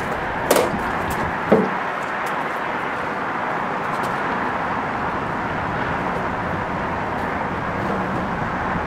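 Steady outdoor urban background noise, like a constant traffic or machinery hum, at an even level. A sharp click comes about half a second in and a short knock a second later.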